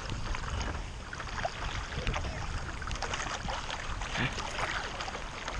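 Paddling a stand-up paddle board in the rain: light water splashes and drips, scattered raindrop ticks, and a low rumble of wind on the microphone.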